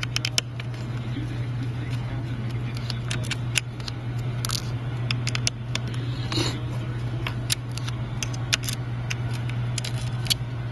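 Scattered small clicks and taps of a precision screwdriver working the tiny screws out of an iPad mini's internal frame, over a steady low hum.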